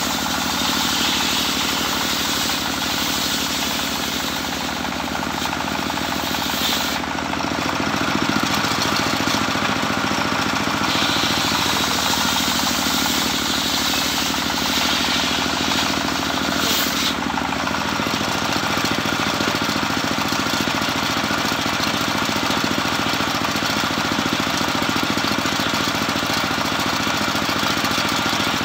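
Homemade belt-driven circular saw bench ripping a plank of teak heartwood, the blade's cutting whine over the steady running of the drive. The cutting sound breaks off sharply twice, at about a quarter of the way in and again just past halfway. After that the blade spins free with no wood in it.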